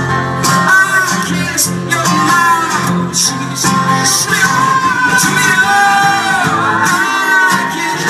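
Live acoustic guitar strummed steadily under singing, recorded from within the audience of a concert hall.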